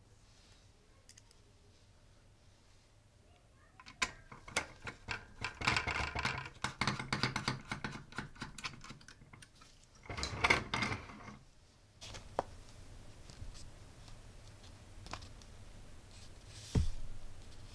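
Small screwdriver driving the bolts that secure the mBot Ranger's main control board to its metal chassis: a run of rapid clicks and scraping from about four seconds in to about twelve. Near the end there is a single thump.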